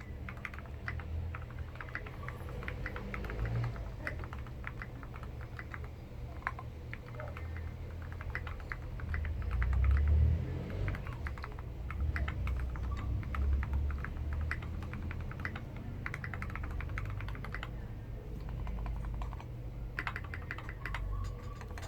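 Continuous fast typing on a custom 60% mechanical keyboard with lubed Tangerine 60g linear switches, a brass plate and SP SA-profile keycaps: a dense stream of keystrokes with no click from the switches. A low rumble runs beneath and swells about halfway through.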